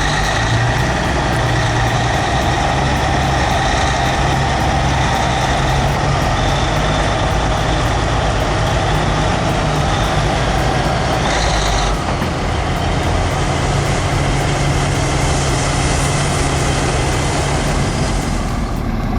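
Heavy truck diesel engines running steadily, with a brief high hiss about eleven seconds in.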